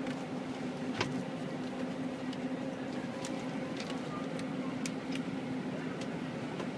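Steady running hum of a coach bus heard from inside the cabin, holding one even low tone, with scattered light clicks and knocks, the sharpest about a second in.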